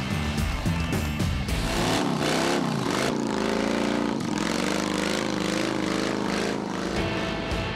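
Music gives way, about a second and a half in, to a motorcycle engine being revved hard up and down again and again during a burnout.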